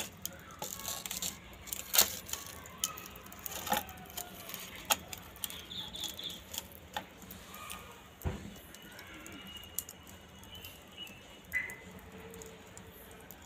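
Firewood sticks being handled and pushed into a wood-fired clay chulha: scattered sharp knocks and clicks of wood, the loudest about two seconds in.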